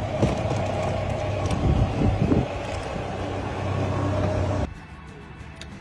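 Riding lawn tractor's small engine running steadily, with a few knocks about two seconds in. It cuts off suddenly near the end, leaving a quiet outdoor background.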